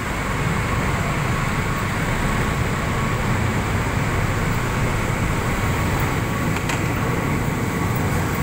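Steady road traffic: a jeepney, motorcycles and cars driving past with a continuous rumble of engines and tyres.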